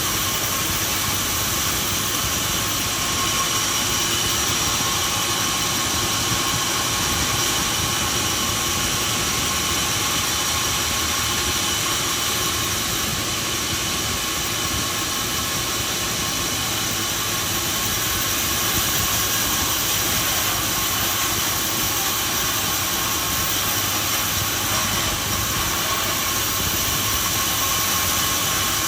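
Industrial sawmill machinery running steadily: a continuous mechanical noise with a steady high whine.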